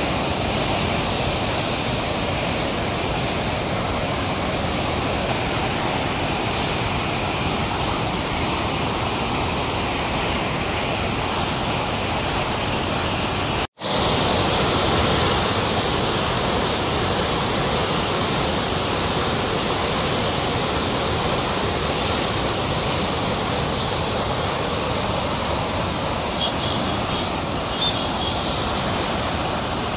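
Floodwater discharging through a dam's opened spillway shutters: a steady, loud rush of churning water. It cuts out for an instant about fourteen seconds in.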